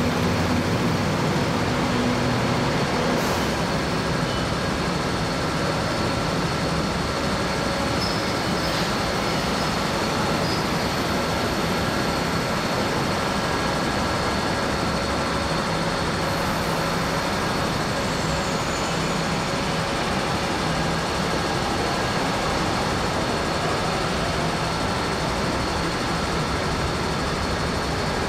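Steady rumble and hum of vehicles at a metro station platform, holding an even level with no pass-by rise, with a few faint steady tones over it.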